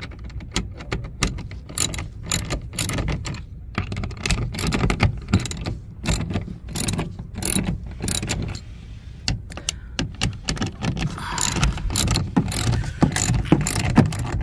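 Hand ratchet wrench with a 10 mm socket clicking in quick runs with short pauses as it is swung back and forth, loosening the bolts that hold a car's window regulator motor.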